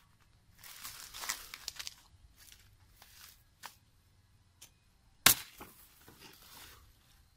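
Footsteps and brushing through dry grass and fallen leaves: irregular rustling and crunching, with one sharp crack a little over five seconds in.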